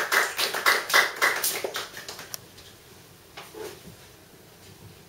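Small audience clapping in a small room, dying away a little over two seconds in, followed by a few faint knocks.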